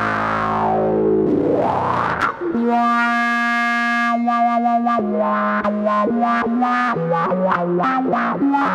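Electric bass played through a Morley 20/20 Power Fuzz Wah pedal, fuzz-distorted: a held note with the wah swept back and forth, then a long sustained note, then a quick run of short notes up and down.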